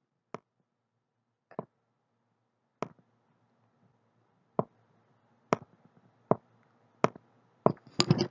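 About nine sharp, separate clicks at irregular intervals, made while a word is handwritten onto a worksheet on a computer screen, with a faint steady hiss underneath from about three seconds in.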